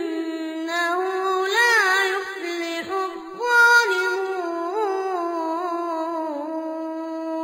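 A single voice singing long, held melodic notes with wavering ornaments, breaking off briefly about three seconds in.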